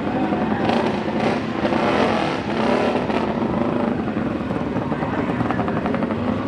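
Two Kawasaki inline-four superbikes, a ZX-14 and an H2, running at a drag strip start line while staged for a race. Near the end a fast, even rattle of pulses sets in.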